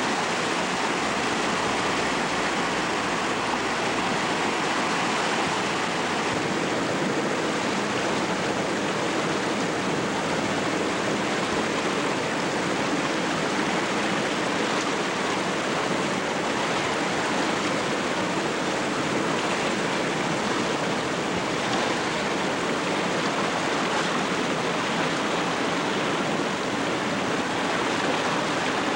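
Steady rushing of a river in flood, muddy torrent pouring over its banks, unbroken throughout.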